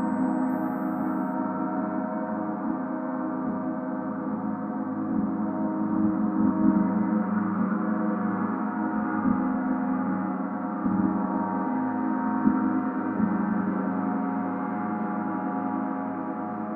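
Planetary gong tuned to Mercury, played continuously: a steady, dense wash of many overlapping tones at an even level, with no single strike standing out.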